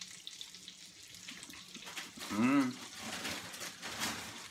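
A person's hummed "mmm" of enjoyment while eating, rising then falling in pitch, about halfway through, over faint hissing.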